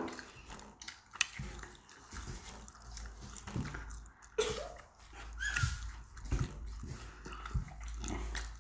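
A child biting and chewing a slice of pizza close to the microphone: soft wet mouth smacks and clicks, with a couple of brief pitched mouth or throat sounds about halfway through.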